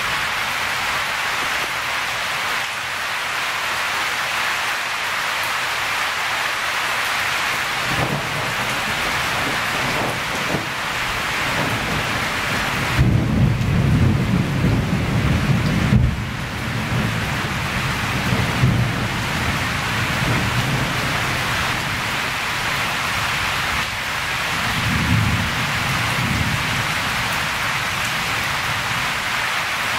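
Steady storm rain hissing, with low rumbles of thunder rolling in about eight seconds in, loudest from about 13 to 16 seconds and again around 25 seconds.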